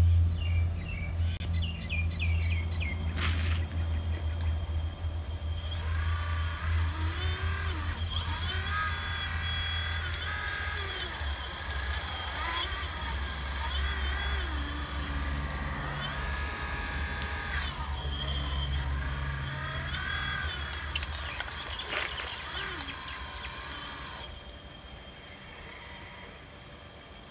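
1:12 scale metal RC hydraulic excavator (Hitachi Zaxis 460LCH model) running: a steady low hum with a whine that rises and falls in pitch as it works. The hum fades away near the end.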